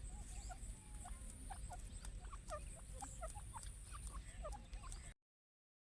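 Faint, quick bird chirps and cheeps in the background, with a steady high whine; the sound cuts off suddenly about five seconds in.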